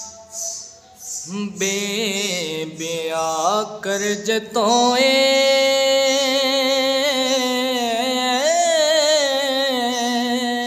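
A single voice singing a slow, melismatic song, sliding between notes and then holding one long wavering note through the second half.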